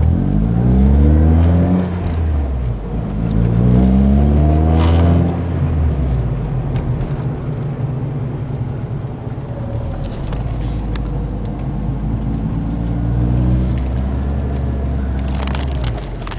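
Ford ZX2's four-cylinder engine pulling away from a stop in the car: the engine note rises twice with a drop in between, as at a gear change, then settles into steady running. The defrost is on, so the A/C compressor is loading the engine, which the owner blames for the car's raised, pulling idle.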